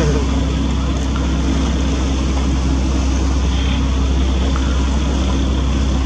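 Boat engine running with a steady low drone.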